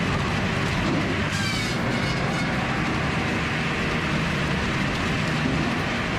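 Heavy machinery running, a steady dense mechanical din with a brief high falling squeal about a second and a half in.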